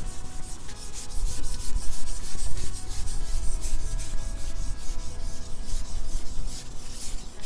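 Carbon fishing pole rubbing and scraping against the angler's jacket as he handles it: a quick run of scraping strokes over a low rumble of handling noise on the microphone.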